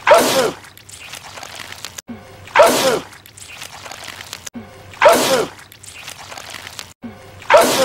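A man's loud sneeze from a film soundtrack, the same sneeze looped: four sneezes about two and a half seconds apart, each starting abruptly at an edit.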